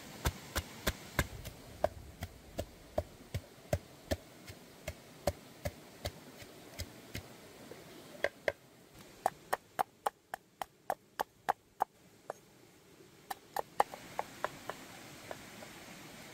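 Chopping with a blade on wood: a steady run of sharp knocks, about three a second, that pauses briefly about three-quarters of the way through and then resumes.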